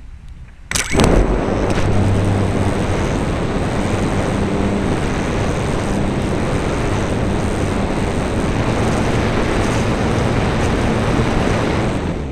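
Electric motor and propeller of a Radian motor-glider starting suddenly about a second in and running steadily under power through the climb. It is heard from a camera mounted on the airframe, with air rushing past. The sound falls away at the very end as the motor is cut.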